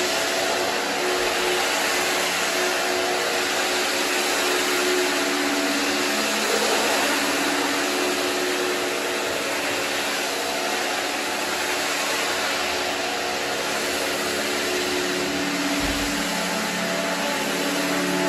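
Electric single-disc rotary scrubber running steadily, its brush scrubbing a foam-soaked rug: a steady motor hum over an even rushing noise.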